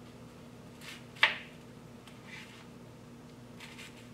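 Kitchen knife cutting through a red onion and knocking sharply once on the cutting board about a second in, with a few fainter cutting sounds after; a faint steady hum underneath.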